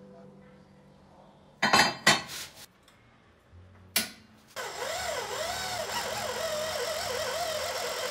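A few sharp metal clanks of steel pieces knocked together, then a single knock. From about halfway, an electric hand drill boring into angle iron, its whine wavering up and down as the bit bites.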